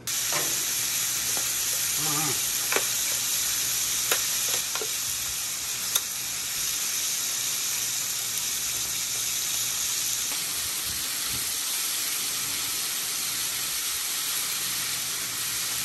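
Steaks sizzling on a hot Blackstone flat-top griddle, a steady frying hiss, with a few sharp clicks in the first six seconds.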